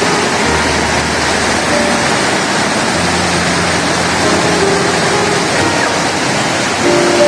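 Steady rush of water from a small waterfall, with background music of held notes over it.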